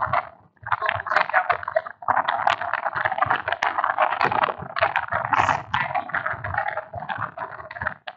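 Stylus scratching and tapping on a pen tablet as handwriting is written out, a dense run of quick strokes with short pauses about half a second and two seconds in.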